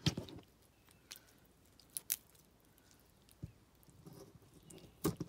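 Knife cutting through a raw chicken wing at the joint: a few short crunching clicks as the blade goes through skin and cartilage, with quiet between.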